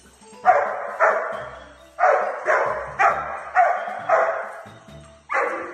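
A dog barking about eight times in short, sharp barks at an uneven pace, some in quick runs of two or three.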